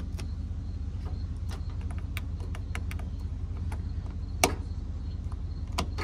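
Metal jumper-cable clamps clicking and rattling on the battery terminals as they are handled, with one sharp click about four and a half seconds in and another near the end, over a steady low rumble.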